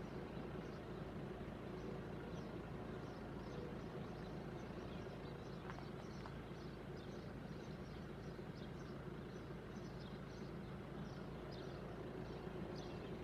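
Outdoor ambience of small birds chirping in short, irregular high calls over a steady low background hum.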